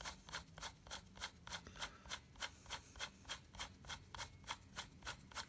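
Quick, even rubbing strokes, about five a second, from hand work on the freshly greased bearing of a Drake T4XC PTO assembly.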